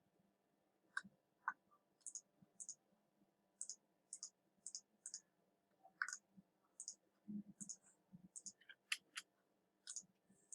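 Quiet clicking of a computer mouse, about two clicks a second, many in quick pairs.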